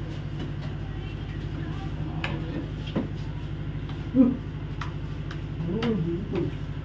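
Steady low drone of a ship's engine carried through the cabin, with a fast even pulse. Over it come a few utensil clinks, a brief loud sound about four seconds in, and short bits of voice near the end.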